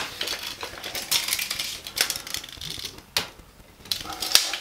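Steel tape measure clicking and rattling as its blade is pulled out, moved and laid against a plaster wall: a few sharp clicks among raspy rattles.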